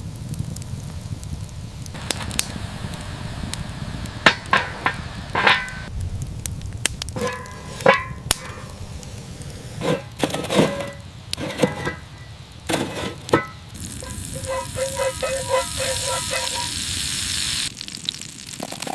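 Food sizzling over an open fire, with scattered sharp clinks and knocks of cooking utensils. Near the end comes a quick run of short ringing taps over a hiss that stops suddenly.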